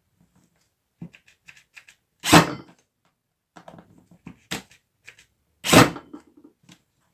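Workshop handling noises from parts being worked on by hand: a scatter of small clicks and taps, and two loud knocks about three and a half seconds apart.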